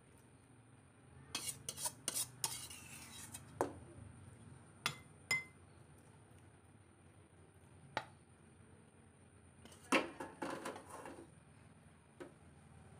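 Metal spatula clinking and scraping against a wok and a ceramic bowl as cooked food is served out. There are two busy clusters of clinks and scrapes, about a second in and again near ten seconds, with single clinks between them, one leaving a brief ring.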